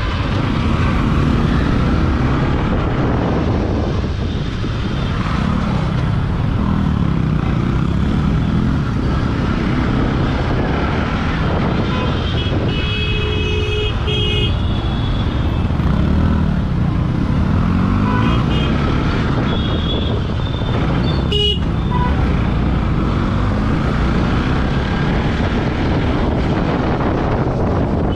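Motorcycle engine revving up and falling back repeatedly through the gears, with wind on the microphone. Traffic horns honk around it several times, the longest blast about 13 seconds in.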